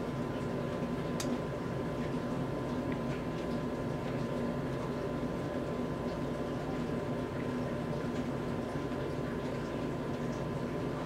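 Steady background hum and hiss with a constant high tone, and one faint click about a second in.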